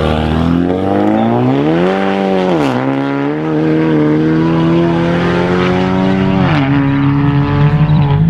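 Car engine pulling hard under acceleration, its pitch climbing and then dropping sharply at two upshifts, about a third of the way in and again near the end.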